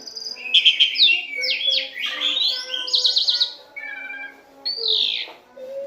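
Asian pied starling (jalak suren) singing a fast, varied run of whistles, chattering notes and rasping phrases. After a short lull it ends with a harsh falling note.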